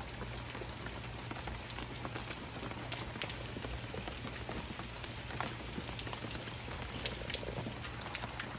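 Steady rain falling, the first rain of approaching Hurricane Ian, with a constant hiss and many small drop ticks scattered through it.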